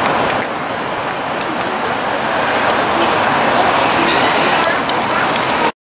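Steady hum of city road traffic heard from high above the streets, with a faint click about four seconds in. The sound cuts off abruptly near the end.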